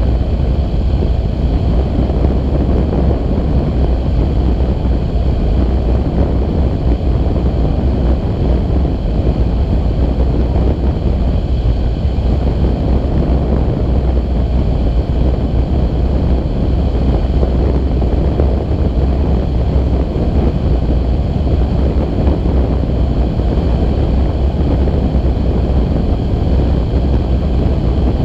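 Steady rushing and buffeting of the airflow over the microphone of a camera mounted on a tandem hang glider in flight: a constant low rumble.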